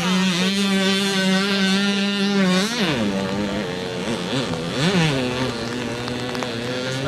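Small moped engines running hard at high, steady revs, the pitch rising and falling sharply about three seconds in and again about five seconds in.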